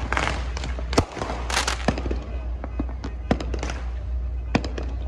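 Fireworks going off: a dense run of sharp bangs and crackling, with the loudest reports about a second in, past the three-second mark and near the end.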